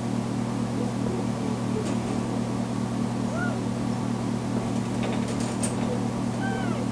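Kitten meowing twice, short arching cries about halfway through and again near the end, with a few light rattles of the wire crate as she climbs its bars. A steady low hum runs underneath throughout. She is crying at being left alone in her crate.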